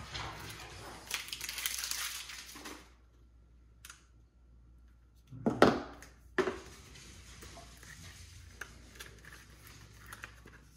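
Paper and plastic packaging rustling and crinkling as the contents of a laptop box are unwrapped and handled, then a quieter pause and two sharp knocks a little past the middle, the first the loudest.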